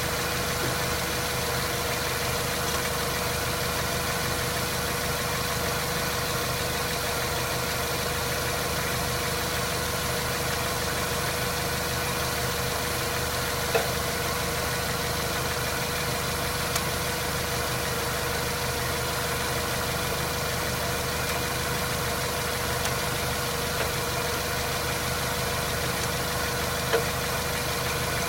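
Mazda 3 with an automatic transmission running steadily, with a constant tone through the mechanical noise and a few single sharp knocks, the clearest about halfway through and near the end. The owner describes a knock in the automatic transmission when coasting that goes away under throttle.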